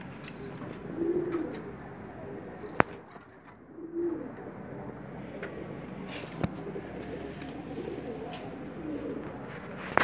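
White fancy pigeon cooing: low coos a few seconds apart, with a couple of sharp clicks between them.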